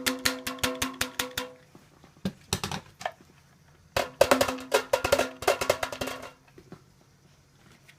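A handheld vacuum's plastic dust container being knocked rapidly against a bin to shake out the dirt, about eight knocks a second with a ringing tone. It stops about a second and a half in, and a second run of knocking comes about four seconds in and lasts about two seconds.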